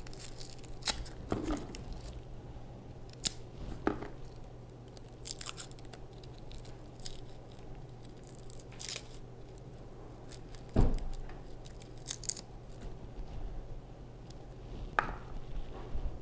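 Garlic cloves being peeled and cut by hand with a small kitchen knife: scattered light clicks and crackles of papery garlic skin, with one louder knock about eleven seconds in.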